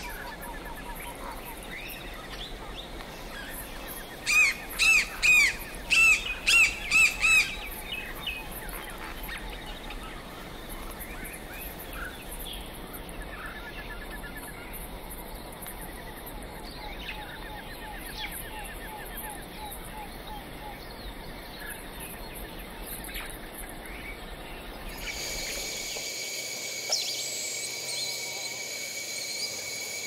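Rainforest bird chorus of mixed chirps and calls, with a quick series of about eight loud, clear call notes about four seconds in. Near the end a steady high-pitched drone sets in beneath the birds.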